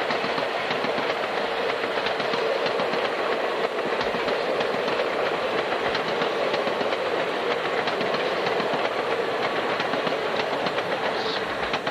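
Rio Grande Ski Train passenger cars rolling past on curved track: a steady rush of wheel-on-rail noise with faint clicks.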